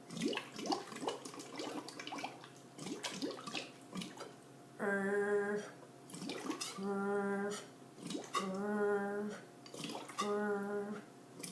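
Bubbles blown through a drinking straw into a cup of liquid, gurgling and popping irregularly. From about five seconds in, a woman's voice holds a steady humming note four times, each under a second long, with bubbling between the notes, as she voices through the straw to practise the American English R.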